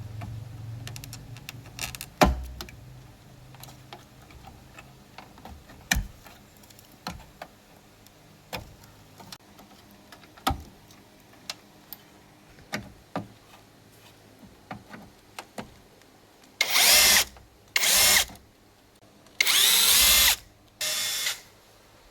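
Scattered clicks and knocks of tools and parts being handled, then a power drill running in four short bursts near the end, the longest about a second.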